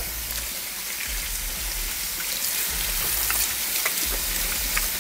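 Kitchen faucet running, water splashing over hands being rinsed in a stainless steel sink: a steady patter with small splashes.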